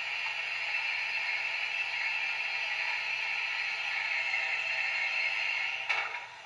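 Steam-locomotive hiss from a Wheeltappers DCC sound decoder in a Hornby 'Princess Elizabeth' model, played through a 25x25x7mm megabass speaker in the tender while the engine stands still. The hiss is steady and cuts off with a short click about six seconds in.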